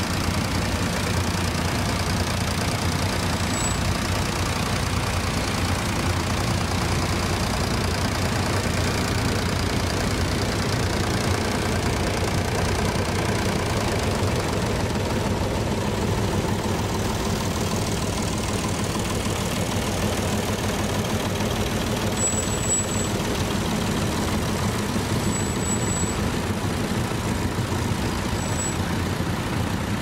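Vintage tractor engine running steadily as it pulls a mounted plough through stubble.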